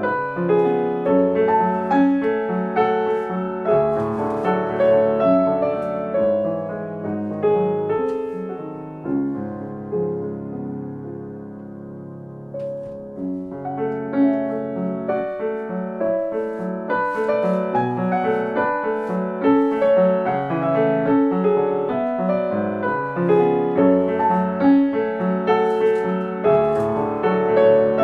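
Background piano music: a continuous run of notes that drops to a softer, sparser passage about nine seconds in, then picks up again some four seconds later.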